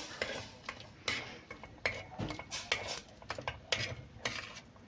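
A utensil stirring mashed potatoes and milk in a pot, clicking and scraping against the pot at an irregular pace.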